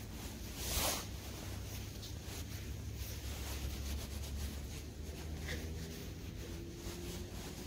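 Fingers rubbing and scraping soil off a freshly dug coin to read its inscription, with one louder brushing swish just under a second in and faint scratchy strokes after it.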